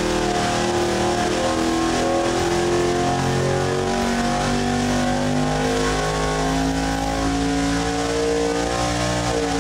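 Carbureted V8 engine running on a water-brake engine dynamometer. Its pitch climbs slowly through a pull under load from about four seconds in, then falls off near the end.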